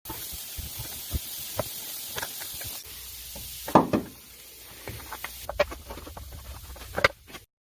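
Toyota Sienna engine running with an irregular knocking and clicking over a steady hiss, the loudest knocks about a third of the way in and near the end. The knock comes from a sheared-off bolt caught at the camshaft sprocket by the timing belt.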